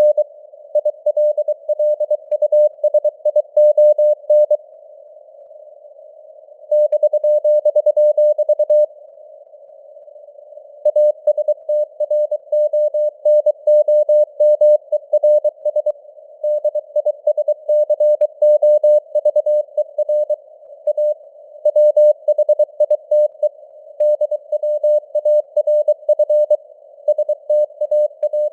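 Morse code (CW) sent as a keyed mid-pitched tone at 23 words per minute, over a hiss of simulated radio noise. The keying pauses for about two seconds twice, around five and ten seconds in, while the hiss goes on.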